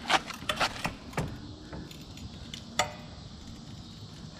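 A few light metallic clinks and knocks: a quick cluster in the first second and one more sharp knock a little under three seconds in, over a faint low hum.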